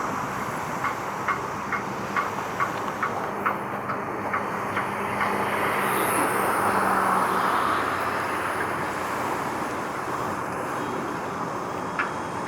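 Steady hiss and rumble of vehicle traffic that swells a little around the middle. A run of light, regular ticks, about two to three a second, sounds in the first few seconds and again near the end.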